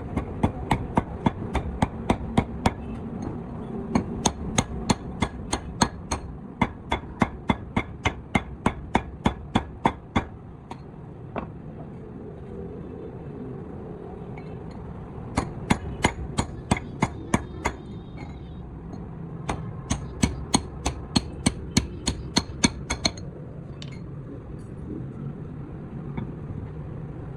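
Hammer striking metal in quick runs of about three to four blows a second, sharp and ringing, stopping and starting several times. This is typical of knocking suspension parts apart or into place.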